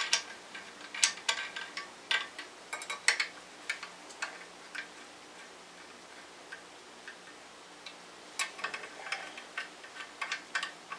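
Socket ratchet clicking in short, irregular runs while the clutch pressure plate bolts are run in. There is a quieter pause in the middle.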